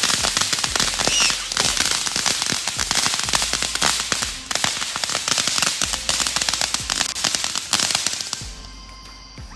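Fireworks crackling: a dense, rapid run of sharp pops and cracks, like a string of firecrackers, that dies away near the end.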